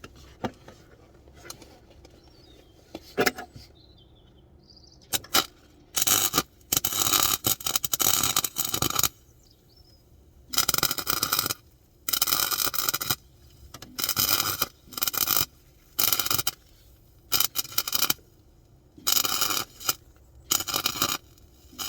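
Gasless (flux-core) MIG welder stitch-welding steel repair plates into a car's rusted floor pan, in about nine short bursts of a second or so each that start and stop abruptly, with short pauses between. A few light clicks and taps come before the welding begins.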